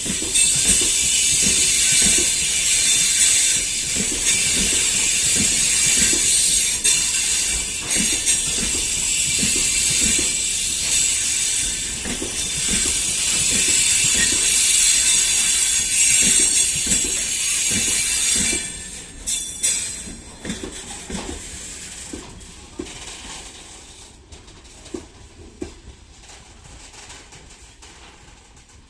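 Freight wagons of a train rolling past, wheels clicking rhythmically over rail joints under a loud high hiss. About two thirds of the way through the last wagons pass and the sound fades away, leaving a few scattered clicks.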